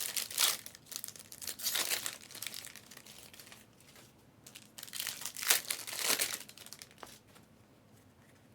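Crinkling and tearing of plastic trading-card wrapping as packs are opened, in two spells of handling. It goes quiet for about the last second and a half.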